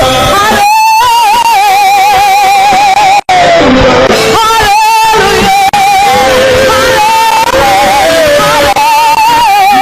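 Music: a voice holding long notes with a heavy, even vibrato over dense instrumental backing, moving to a new note every second or two.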